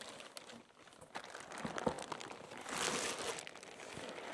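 Large corrugated cardboard box being turned over on a wooden tabletop: cardboard rubbing and scraping, with a few light knocks and a longer scrape about three seconds in.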